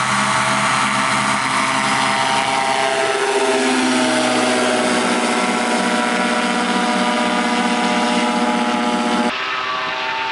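Kolb Firestar 2 ultralight's Yamaha Phazer 80 hp four-stroke engine and propeller at full takeoff power, passing close by with a drop in pitch about three to five seconds in as the plane flies past. About nine seconds in the sound cuts abruptly to the engine running steadily and a little quieter, as heard from on board.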